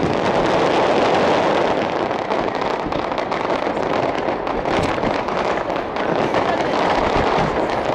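Digital starmine fireworks barrage: a dense, continuous run of overlapping bursts and crackling, many shots a second with no pause.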